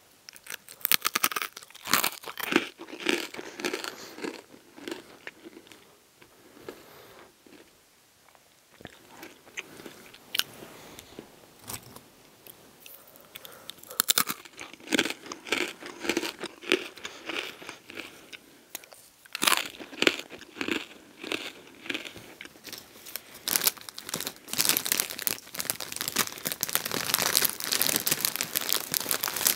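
Close-miked crunching and chewing of hard pretzels, in bursts of sharp crackly bites and chews with short quieter pauses. Near the end, a dense stretch of crackling as the crinkly plastic snack bag is rustled by a hand reaching in.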